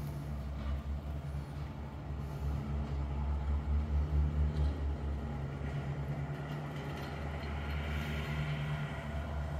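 Steady low mechanical hum with a few even low tones, swelling and easing in loudness.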